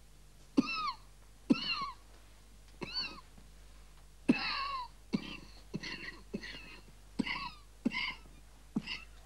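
A person coughing hard in a series of about ten hacking coughs, each a sharp burst followed by a high, squeaky wheeze.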